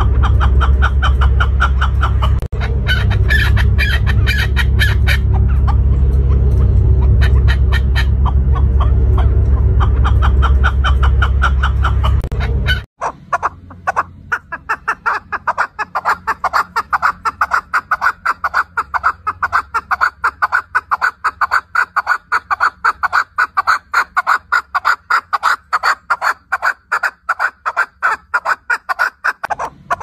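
Chukar partridge calling: a fast, unbroken series of short clucking notes, several a second. A loud low rumble sits under the calls for the first half and stops abruptly about 13 seconds in.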